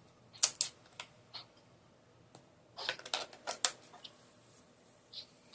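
Sharp clicks and taps from handling a small handheld weather radio: a few separate clicks early, a quick cluster about three seconds in, and one more near the end.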